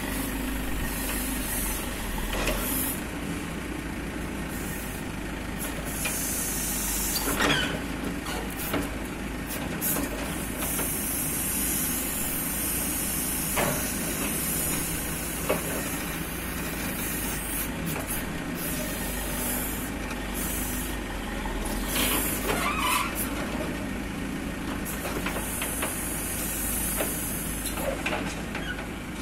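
JCB 3DX backhoe loader's diesel engine running steadily while digging, with a high hiss that comes and goes. A few sharp knocks sound through it, the loudest about a third of the way in and again about three quarters of the way through.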